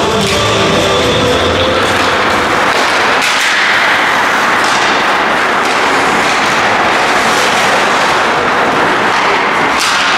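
Rock intro music fades out over the first few seconds, giving way to ice hockey rink noise: a steady hiss of skates on the ice with scattered sharp knocks of sticks and pucks.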